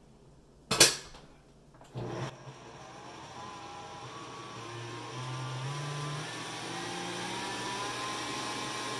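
Electric stand mixer beating eggs and salt. After a sharp click just under a second in, the motor starts about two seconds in and its whine climbs in steps as the speed is turned up, then runs steadily.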